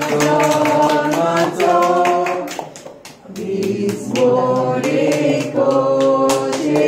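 A small group of mixed voices singing a birthday song together in a local language, clapping along in time, with a short pause between sung lines about three seconds in.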